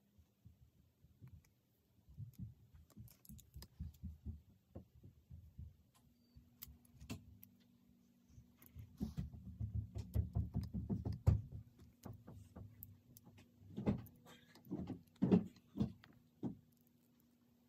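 Plastic Lego Technic parts rattling and clicking as they are handled and pressed together, with soft knocks on the work surface. A faint steady hum comes in about six seconds in.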